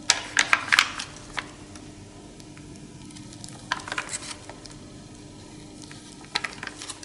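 Leaves of an old manuscript being turned and handled: crisp rustles and clicks in several short bursts, over a faint steady hum.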